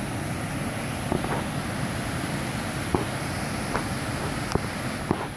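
Steady wind rushing over the phone's microphone, with several light clicks and taps from the phone being handled.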